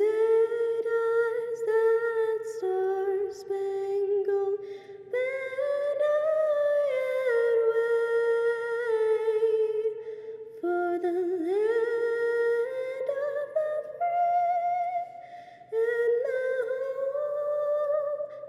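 A woman's unaccompanied solo voice carrying a slow melody in long held notes with vibrato, phrase by phrase with short pauses for breath.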